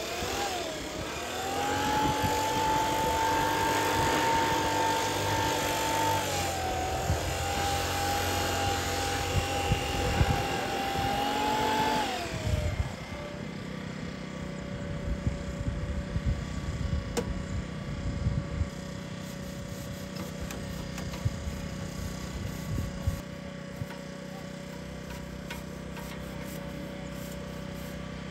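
A handheld cordless power tool runs with a steady high whine for about twelve seconds, dipping briefly midway, then winds down and stops. Under it the combine harvester's engine keeps running steadily, and afterwards there are small knocks and rustles of woven rice sacks being handled.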